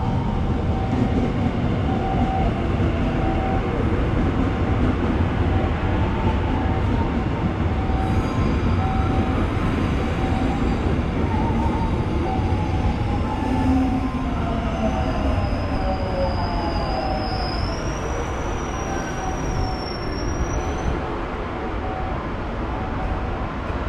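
Train running along the rails, a steady loud rumble of wheels and running gear, with a thin high wheel squeal that wavers in pitch from about a third of the way in until near the end.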